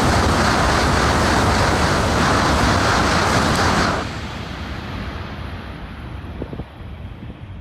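A Tohoku Shinkansen bullet train passing through the station at speed: a loud rushing roar of air and wheels that cuts off abruptly about four seconds in as the last car goes by, leaving a fading rumble.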